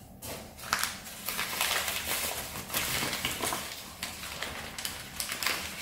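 Hands rummaging through a box of small vintage ornaments: a steady run of rustling with many small clicks and knocks as items are moved about and picked up.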